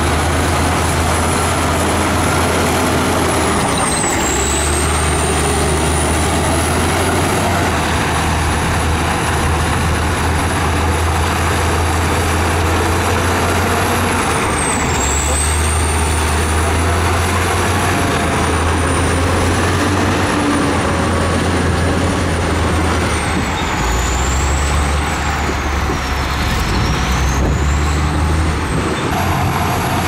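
Shantui SD22 crawler bulldozer's diesel engine running under load as it pushes dirt with its blade: a steady low drone, with a high whine that drops in pitch several times and climbs back.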